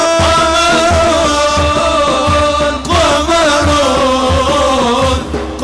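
Male voices singing an Arabic devotional inshad in long, ornamented held notes, over a regular low frame-drum beat.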